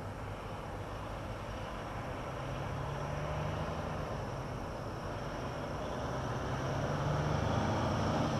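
Engine of a loaded farm truck approaching, running steadily and growing louder throughout.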